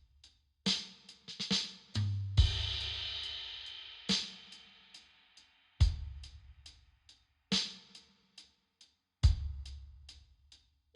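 Slow, sparse drum beat in a lo-fi slowcore song, with no vocals: heavy low kick hits roughly every one and a half to two seconds and light hi-hat ticks between them. About two seconds in, a cymbal wash fades out over a few seconds.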